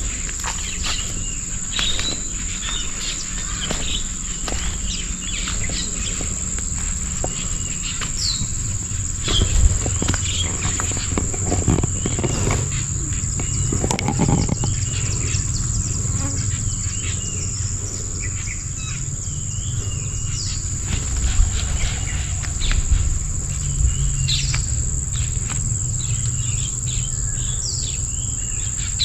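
Steady high-pitched insect drone with scattered short bird chirps above a low rumble.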